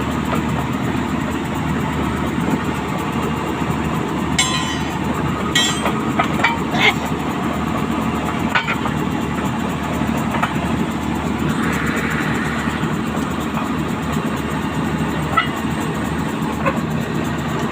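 Excavator engine running steadily, with occasional sharp metallic clinks and knocks from work on the steel track chain.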